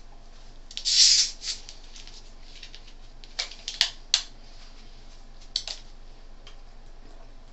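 Screw cap of a plastic soda bottle being twisted open: a short fizzing hiss about a second in, then a few sharp clicks from the cap.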